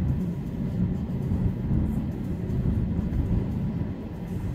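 Steady low road and engine noise of a moving car, heard from inside its cabin.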